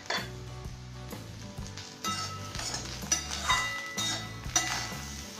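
Metal spatula stirring and scraping fried raw banana slices in a metal kadhai, starting about two seconds in, in several strokes with ringing metal clinks against the pan. A single clink right at the start.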